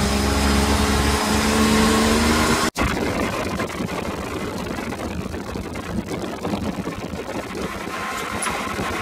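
Off-road buggy engine pulling along with a slowly rising pitch. Almost three seconds in it cuts off abruptly and gives way to a rough, steady rumble of the buggy driving over a dirt track, with wind noise.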